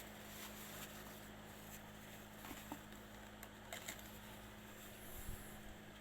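Near-quiet room tone: a faint steady low hum, with a few soft scattered ticks.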